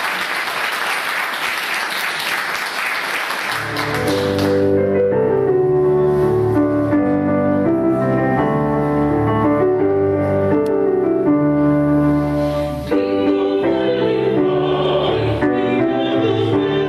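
Audience applause for about the first four seconds, then a digital piano plays slow held chords as an introduction. Around thirteen seconds in, a mixed vocal quartet of two men and two women comes in singing over it.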